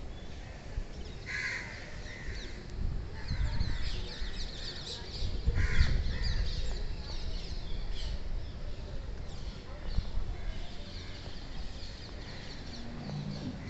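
Crows cawing: two harsh caws, about a second in and about six seconds in, over quick high chirping of small birds. A low rumble of wind on the microphone runs underneath.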